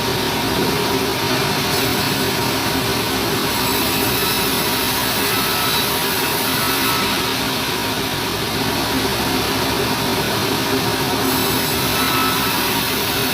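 Sawmill machinery running steadily: a motor's hum under a dense, even hiss, with no cuts or knocks standing out.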